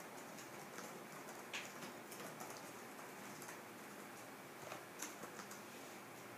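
Quiet room tone with a faint steady hiss and a few scattered light clicks and taps, the clearest about a second and a half in and a small cluster near five seconds.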